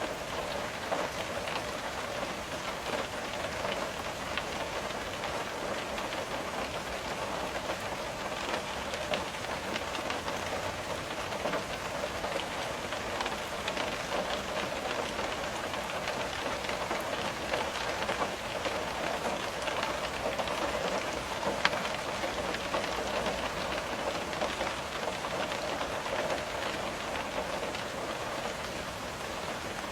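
Steady rain pattering on a window, made up of many small drop ticks, with one sharper tap about two-thirds of the way through.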